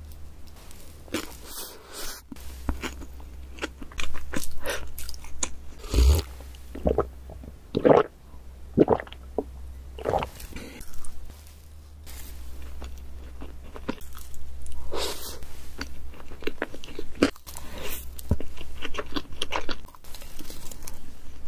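Close-miked ASMR eating of chocolate Christmas cake: spoon bites, crunching and wet chewing in irregular bursts, with a few swallows as milk is drunk around the middle. A steady low hum runs underneath.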